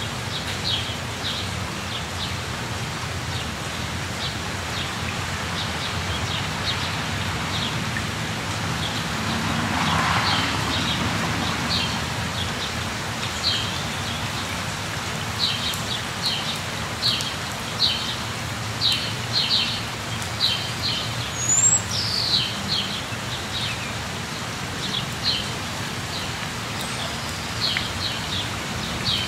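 Steady rain falling, with a bird chirping in short repeated calls throughout, more often in the second half. A brief louder swell of noise comes about ten seconds in.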